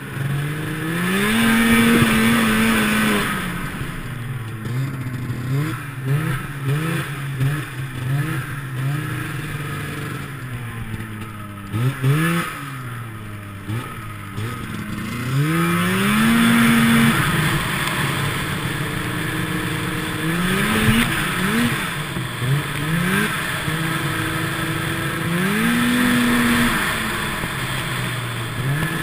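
A 1996 Yamaha V-Max 600 snowmobile's two-stroke engine revs up and falls back again and again as the sled is ridden. A rushing hiss runs over it and is loudest near the start and through the second half.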